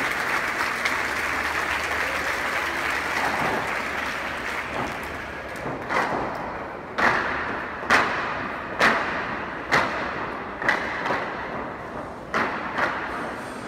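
Crowd applause dying away, then a large group of dancers in wooden clogs striking in unison: sharp, echoing wooden knocks about once a second, with two close together near the end.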